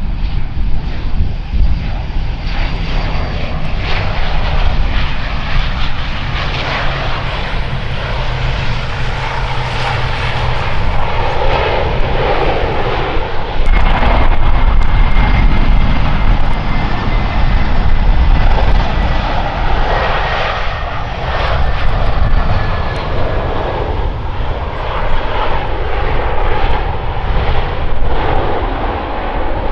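Airliner engines running loud and steady with a heavy low rumble. A thin whine glides slowly down in pitch from about halfway through.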